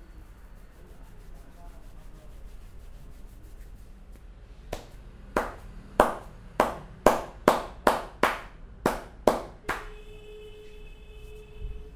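A barber's hands slapping the head in a quick series of about ten sharp strikes, roughly two a second, as part of an Indian head massage. A steady tone follows near the end.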